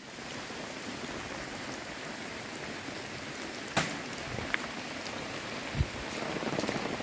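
Steady rain falling, with scattered drops tapping that grow denser near the end. A single sharp click comes a little under four seconds in, and a low thump near six seconds.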